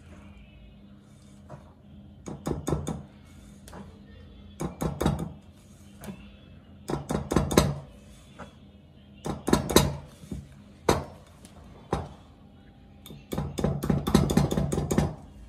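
Wire balloon whisk rattling against a glass mixing bowl as flour is worked into a thick, stiffening dough, in several bouts of quick clicking about a second long, the longest near the end.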